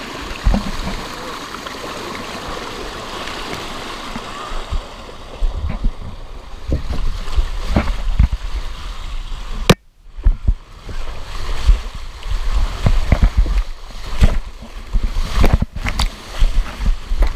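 Water rushing down a fiberglass water slide around a rider sliding feet first, heard up close. Steady rushing for the first few seconds, then frequent low thumps and knocks as the body bumps along the curves, with one sharp crack about ten seconds in.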